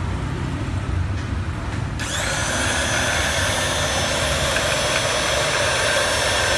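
Handheld electric round-knife cloth cutting machine switched on about two seconds in, its motor then running steadily with a high whine. Before it starts, only a low background rumble.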